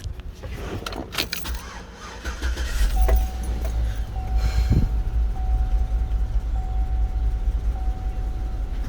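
Keys jangle, then the 2008 GMC Yukon's 5.3-litre V8 is started about three seconds in and runs with a low, steady sound while misfiring badly, its codes pointing at cylinders 2, 4, 6 and 8. A steady electronic tone, breaking about once a second, sounds over the engine.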